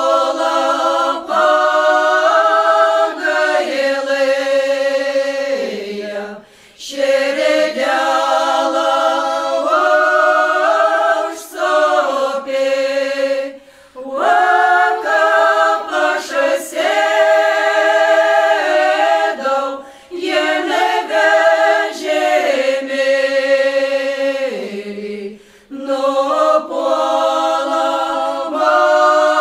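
Unaccompanied choir singing in slow, held notes, in phrases of about six seconds with a short break between each.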